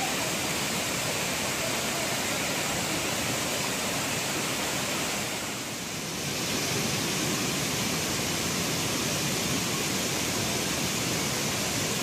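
Waterfall cascading over boulders: a steady, full rush of falling water that dips briefly about halfway through.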